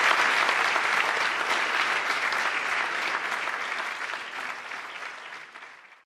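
Audience applauding, loud at first and gradually fading away over the last few seconds.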